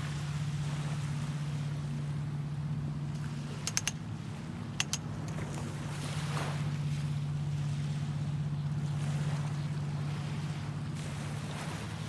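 Small waves washing gently onto a sandy beach, with one fuller wash about six seconds in, under a steady low hum. Three quick sharp clicks come about four seconds in, and two more about a second later.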